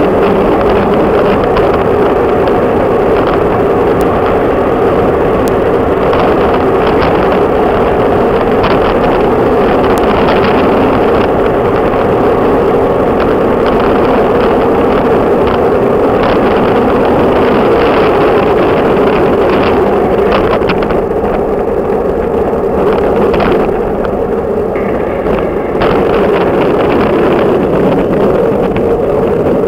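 Steady rush of wind and tyre-on-asphalt noise picked up by a road bike's onboard camera while riding, with small scattered knocks from bumps in the road. It eases a little about three quarters of the way through.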